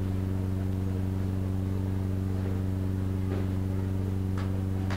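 A steady low electrical hum with a stack of evenly spaced overtones, unchanging throughout, of the kind a microphone and sound system pick up from the mains.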